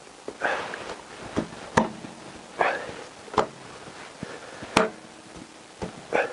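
A chrome coolant pipe being worked onto a motorcycle engine by hand: several sharp clicks and knocks as it meets the engine casing, with scraping between them.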